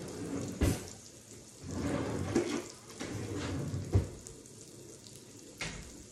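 Kitchen noise: several bursts of hissing with short gaps, a couple of sharp knocks, and a door clicking shut about five and a half seconds in.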